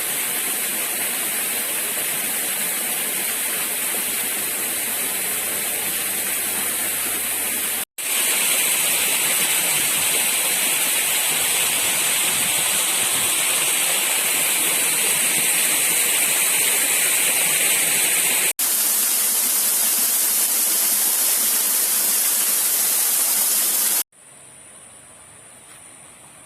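Rushing water, a loud steady hiss with no distinct events, interrupted by abrupt cuts about 8 and 18 seconds in. Near the end it drops suddenly to a much quieter background.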